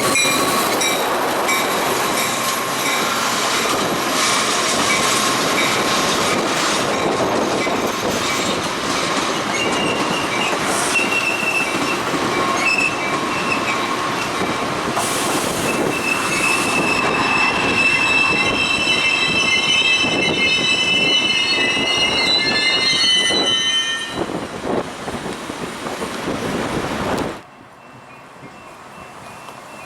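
Metra diesel commuter train pulling into the station, its cars rolling past with a steady rumble and high-pitched wheel squeal that grows stronger in the middle of the passage. The sound drops off abruptly near the end.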